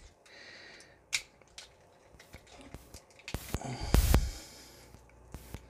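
Handling of a plastic Transformers action figure: rubbing of plastic and skin with scattered small clicks of parts, and a louder knock and thump of handling about three and a half to four seconds in.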